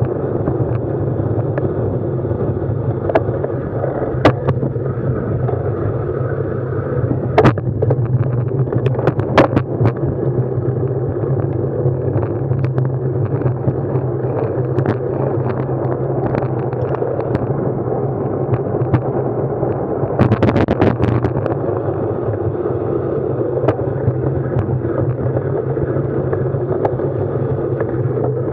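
Steady ride rumble and wind noise on an action camera's microphone while riding, with scattered clicks and knocks and a short burst of rattling about twenty seconds in.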